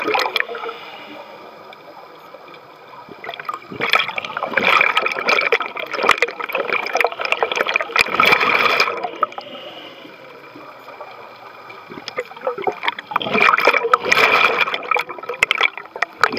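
Scuba diver breathing through a regulator underwater: exhaled bubbles gurgle out in two long bursts, about four seconds in and again near the end, with quieter stretches between breaths.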